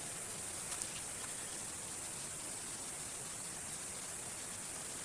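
Steady rush of falling water from a waterfall, an even hiss with no change in level, with a couple of faint ticks about a second in.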